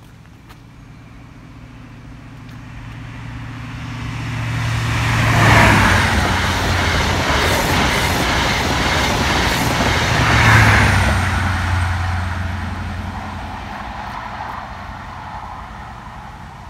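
InterCity 125 High Speed Train with Class 43 diesel power cars passing at speed. The sound builds up and peaks twice, about five seconds apart, as the leading and trailing power cars go by, with the rush of the coaches in between, then fades away.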